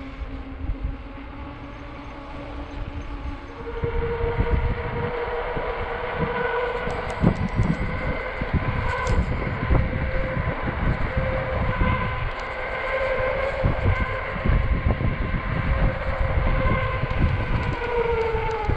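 Electric bike's hub motor whining under power. About four seconds in it gets louder and jumps up in pitch, holds fairly steady, then glides down near the end as the bike slows. Wind rumbles on the microphone throughout.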